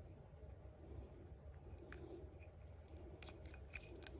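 Blue plastic protective film being peeled off a small stick-on metal hook: faint scattered crackles and ticks, more of them in the second half.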